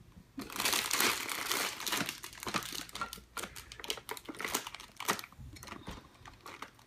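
Packaging being handled and crinkled: a dense burst of crinkling about half a second in, then scattered crackles and clicks.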